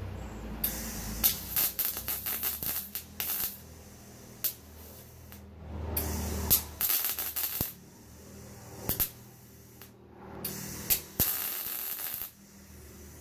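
Welder crackling in short bursts of about two seconds each, three times, while laying stitch welds on thin sheet steel of the bus body, with quieter pauses between bursts.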